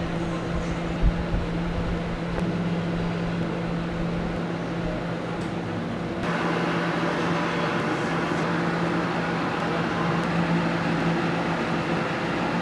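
Steady hum of kitchen machinery with a low drone and a few faint clicks. About six seconds in, the background steps up suddenly, a little louder and brighter.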